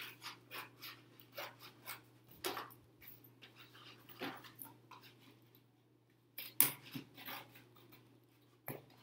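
Scissors cutting through thin cereal-box cardboard: a run of short, crisp snips at an uneven pace. There is a brief pause a little past halfway, and the loudest cut comes just after it.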